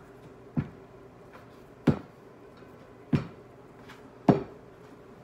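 Four sharp pats about a second and a bit apart: a filled ball of khanom pia pastry dough being patted flat between the palms.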